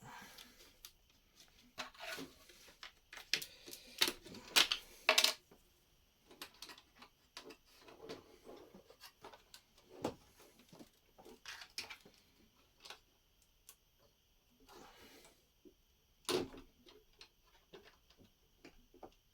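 Plastic Lego bricks clicking and clacking as they are handled, in irregular bursts, with a flurry of sharper clacks a few seconds in and one loud clack later on.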